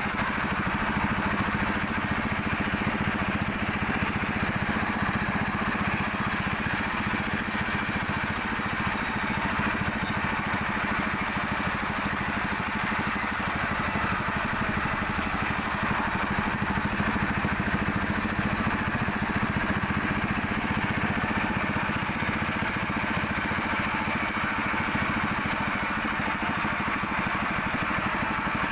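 Sawmill machinery running steadily: the engine-driven saw of a small mill sawing mahogany, with an even engine note that does not change.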